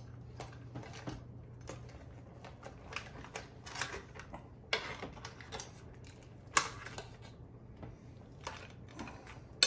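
A metal serving spoon clinking and scraping in a metal stew pot and against a bowl as crab and shrimp stew is dished up: scattered light taps and clicks at an uneven pace, over a steady low hum.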